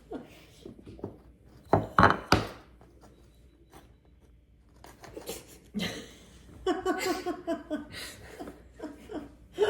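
Knife sawing at the crust of a homemade loaf of bread, a few rough scraping strokes as the cut is hard to get started.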